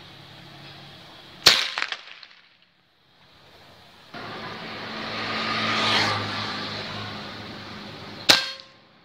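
Two shots from a PCP air rifle, each a sharp crack: one about a second and a half in, with a short ringing tail, and one near the end. Between them a background noise swells and fades.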